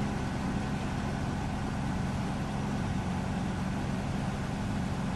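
A sailboat's engine running steadily, a low even hum.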